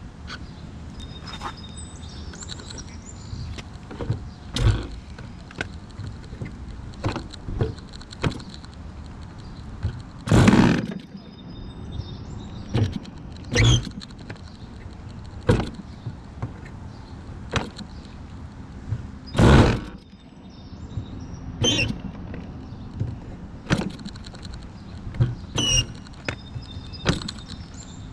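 Irregular knocks, taps and scrapes as hands and tools work on a model airplane's engine and wing, with two louder, longer thuds about ten and nineteen seconds in.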